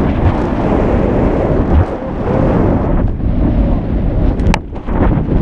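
Strong wind rushing and buffeting the microphone of a camera worn on a tandem skydive, with one sharp click about four and a half seconds in.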